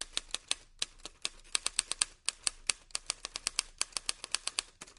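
Manual typewriter typing: a fast, uneven run of sharp clacks from the keys and typebars, about six a second, with a few short pauses.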